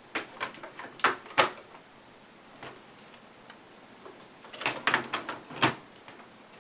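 Hard plastic Power Rangers Thunderzord toy pieces clicking and knocking as they are pushed and snapped together on the Tor base. There is a cluster of clicks in the first second and a half, then another about four and a half seconds in, each ending in a sharper knock.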